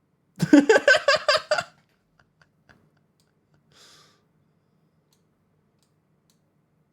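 A short burst of rapid laughter, about eight quick pulses over a little more than a second. About three seconds later comes a faint, short, hissing sneeze from a cat.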